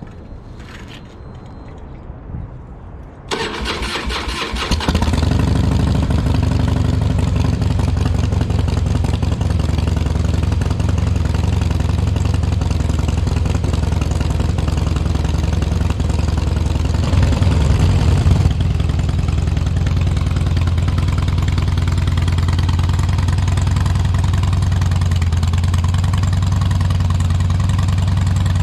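2005 Harley-Davidson Heritage Softail's V-twin engine cranked on the electric starter for about a second and a half, catching about five seconds in, then idling steadily with one short rev a little past the middle. This is its first start after sitting for at least six months.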